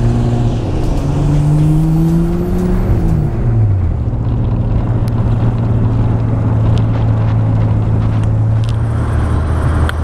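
Classic Porsche sports car engines running on a gravel road, one car's revs climbing and then dropping sharply about three seconds in, over a steady engine drone and loud road and wind noise. A few sharp ticks come in the second half.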